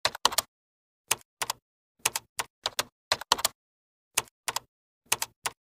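Typing sound effect: sharp keyboard clicks in short runs of one to three, with dead silence between them, over and over.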